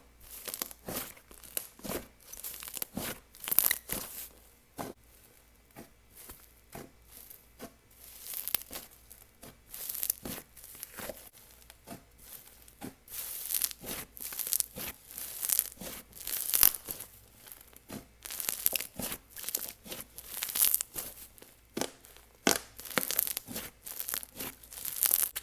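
Butter slime with a jelly base being squished, stretched and pressed by hand. It gives off irregular sticky crackles and popping, tearing sounds, some in quick clusters.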